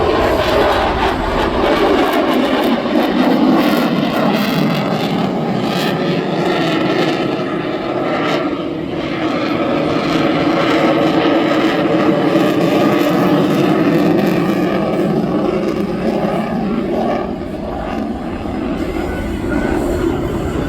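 Twin jet engines of an F/A-18 Super Hornet running at high power through a minimum radius turn. The jet noise is loud and steady, its tone shifting slowly as the fighter swings around, and it eases briefly about seventeen seconds in.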